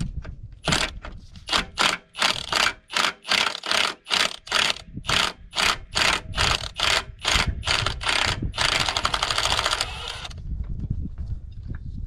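A hand tool worked in quick, even strokes, about two to three a second, each a short clicking burst, then a steadier unbroken run of about two seconds near the end.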